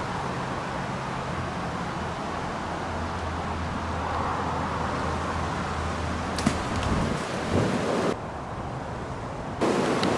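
Wind blowing through pine trees and over the microphone, with a steady low rumble; a single sharp click sounds about six seconds in.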